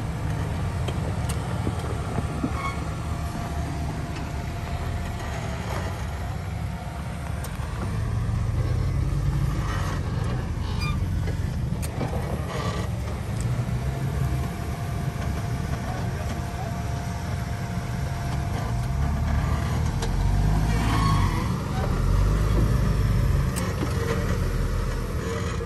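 Lifted Jeep Cherokee's engine running at low revs in a low, uneven rumble as it crawls over a rocky ledge in four-wheel drive, swelling as the throttle opens. A few sharp knocks come through, likely tyres or the underbody hitting rock.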